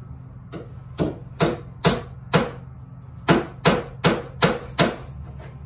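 Hammer driving a nail into a wooden bench plank: about ten sharp strikes in two runs, roughly two a second, with a short pause between the runs.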